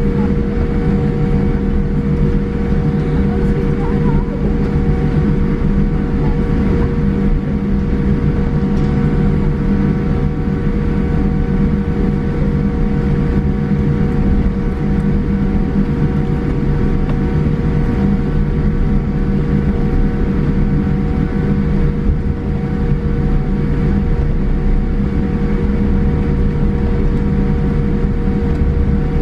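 Cabin noise in a Boeing 787-8 taxiing, its Rolls-Royce Trent 1000 engines at low power: a steady hum with a few steady tones over it, unchanging throughout.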